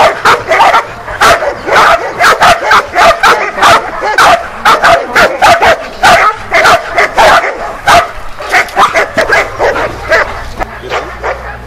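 A dog barking rapidly and without pause, about three or four barks a second: the bark-and-hold of protection work, the dog guarding a helper cornered in the hide. The barking eases off just before the end.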